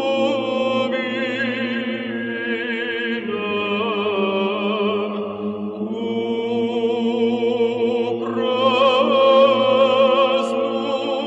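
Slow vocal music in long held, wavering notes with vibrato, sung over a steady low note, in the manner of a chant.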